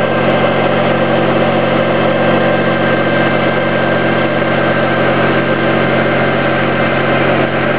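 Engine of a borehole drilling rig running steadily: a loud, even drone that holds one pitch throughout.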